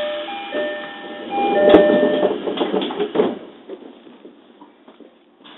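Train door-closing chime: repeated two-tone chime notes, then the sliding doors shut with a knock and rattle about two seconds in.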